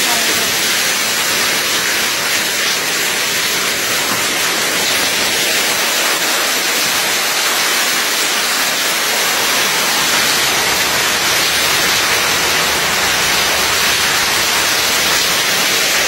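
Heavy storm rain pouring down, a loud steady rush that does not let up.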